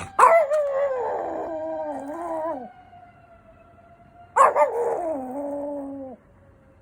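Papillon dog howling twice, each howl about two seconds long and opening with a sharp yip, set off by a fire engine siren whose faint slow wail can be heard between the howls.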